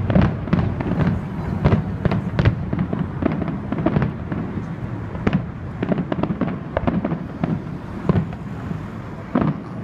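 Fireworks display going off: a rapid string of bangs and crackles, thickest in the first couple of seconds, then sparser, with a louder bang near the end.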